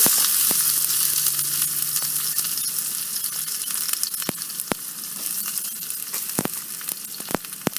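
Onions dropped into hot seasoning oil with mustard, cumin and fenugreek seeds, sizzling in the pan. The sizzle is loudest as they go in and slowly settles, with scattered sharp clicks throughout.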